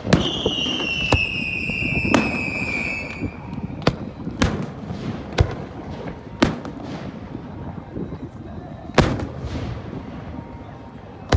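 Fireworks display: aerial shells bursting with sharp bangs about once a second, fewer toward the end, over a low rumble. A high whistle, falling slowly in pitch, runs through the first three seconds.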